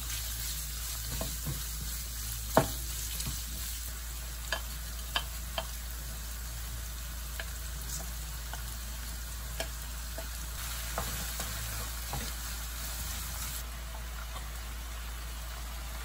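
Diced Spam and vegetables sizzling steadily in a non-stick frying pan while being stirred with a wooden spatula. The spatula knocks sharply against the pan about two and a half seconds in, with a few lighter taps later.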